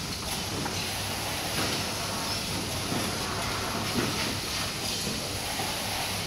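Carton erecting, folding and sealing line running: a steady machine hum and hiss with scattered clicks and knocks, one sharper knock about four seconds in.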